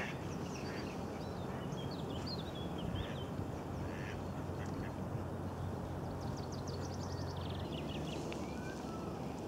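Ducks quacking on a river, with small birds chirping and a quick trill about six seconds in, over a steady low hum.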